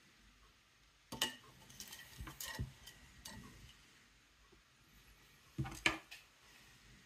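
Eggshell fragments clicking and clinking on a porcelain plate as a hard-boiled egg is peeled, in scattered bursts. Two louder clinks come a little before the end as the peeled egg is set down on the plate.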